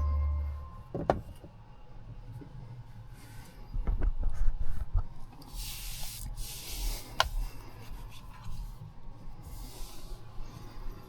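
Rubbing and rustling handling noises with a few sharp clicks, after background music fades out in the first second.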